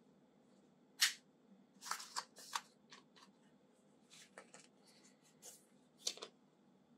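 Handling noises while unboxing: a series of short rustles and clicks. The loudest comes about a second in, a cluster follows around two seconds, and another comes near six seconds.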